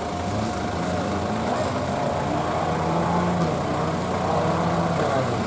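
Off-road 4x4 vehicle engine running steadily at low speed.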